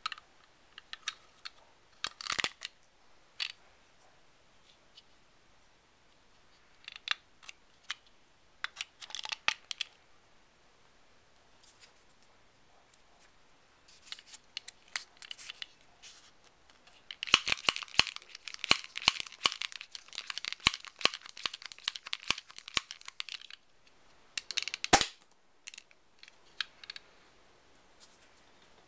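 A small plastic Nerf pocket blaster and its foam darts handled and loaded by hand: scattered plastic clicks and rustles, a run of quick crackling clicks lasting several seconds past the middle, and one sharp snap near the end.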